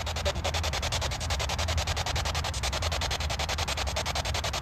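Spirit box radio sweep playing through a small handheld speaker: hissing static chopped many times a second as it scans across stations, with a low hum underneath.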